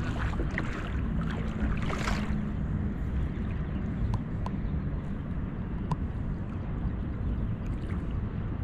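Wind rumbling on the microphone over water sloshing around a person wading waist-deep while hauling in a cast net, with a short swish about two seconds in.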